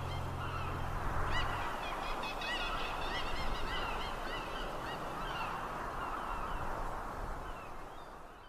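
A flock of birds calling, many short overlapping calls, fading out near the end. The last low notes of background music stop about a second and a half in.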